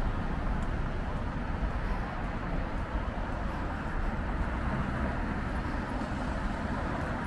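Busy city street ambience: a steady rumble of traffic with people's voices mixed in.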